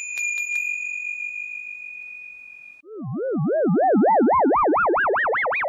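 Cartoon sound effects: a few quick clicks and a high bell-like ding ringing steadily, cut off about three seconds in, then an electronic tone warbling fast and rising steadily in pitch.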